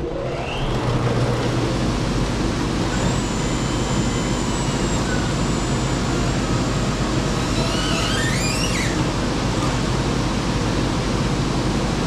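Wood-Mizer LT35 band sawmill running at full speed, its engine and band blade sawing a log as the head travels along the bed: a test cut after the blade height was reset to the bed rails. A few brief rising chirps sound about eight seconds in.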